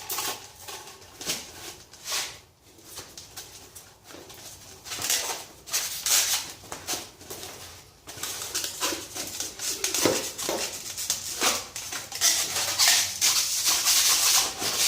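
Motorcycle tire being worked onto its wheel rim by hand, its bead soaped with soap and water: irregular rubbing and scraping of rubber against the rim with knocks, and a few short squeaks about ten seconds in.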